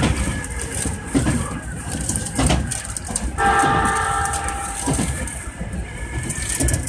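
Electric commuter train running through a station, with rattling running noise and a few sharp knocks from the wheels over the track. About three seconds in, a train horn sounds one steady chord for about a second and a half.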